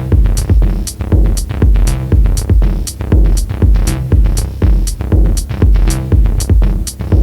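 Electronic song, instrumental passage: a drum-machine beat with a heavy kick about twice a second and bright hi-hat ticks over a sustained bass line.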